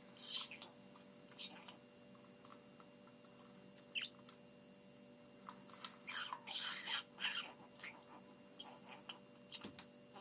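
Budgerigar making odd, short scratchy calls with its head in its food dish: a few isolated squeaks, then a dense run of them about six to seven seconds in, followed by small ticks.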